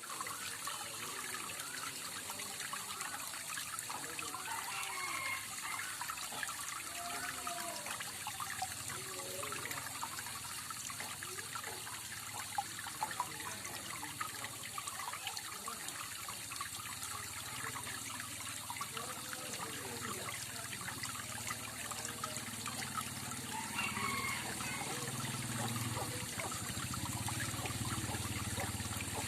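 Water trickling and splashing down a small artificial waterfall in a steady flow.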